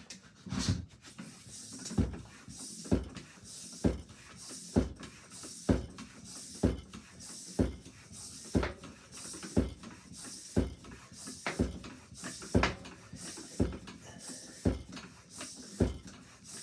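Floor bicycle pump inflating a road bike's inner tube, stroked at a steady pace of about one stroke a second: each stroke is a knock followed by a hiss of air.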